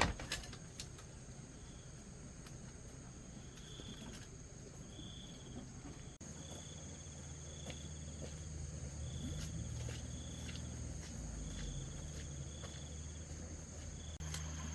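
Insects such as crickets chirping: a steady high buzz with short chirps that repeat every second or so. Underneath is a low rumble that gets louder about six seconds in.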